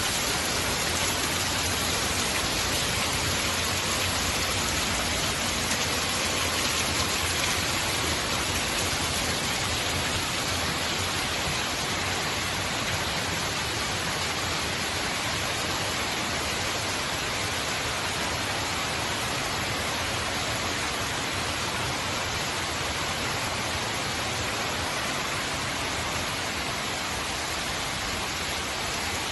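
Steady heavy rain falling, an even unbroken hiss of rain with no single drops or thunder standing out.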